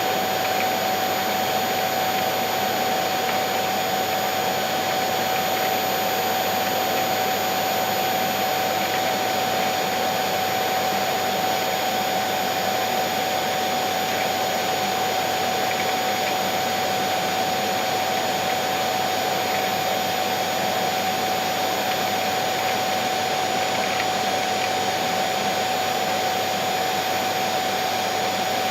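Vacuum cleaner motor running steadily, an even rushing hiss with a steady whine on top, unchanging throughout.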